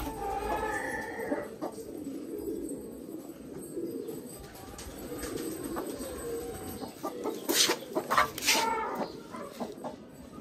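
Poultry-house sounds: a hen clucking, over a steady low cooing of pigeons, with a few sharp knocks about three-quarters of the way through.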